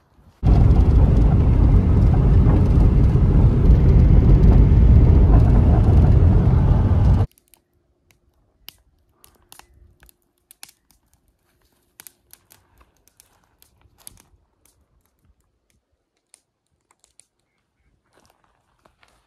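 Loud steady rushing noise, deep and dense, for about seven seconds, cut off abruptly. After it come only sparse faint clicks and ticks.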